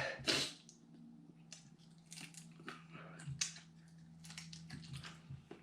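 Small plastic Lego bricks being handled and snapped together, a scatter of light clicks and rattles. There is a short burst of noise just at the start.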